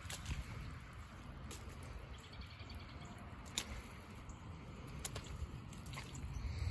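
Shallow stormwater runoff trickling faintly across a waterlogged, muddy yard, with several sharp squelching clicks spaced through it.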